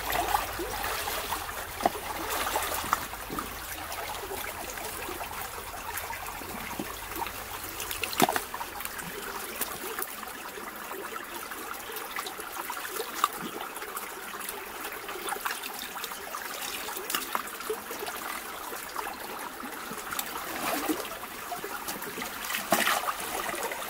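Shallow stream trickling over rocks, steady throughout, with a few short knocks and splashes from wading and handling things in the water.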